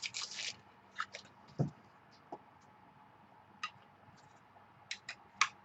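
Trading cards being handled: a few sparse ticks and brief scratchy slides of card stock, with one soft thump about one and a half seconds in.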